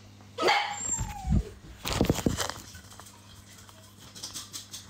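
A puppy giving a few short whining cries, one sliding down in pitch, in the first couple of seconds.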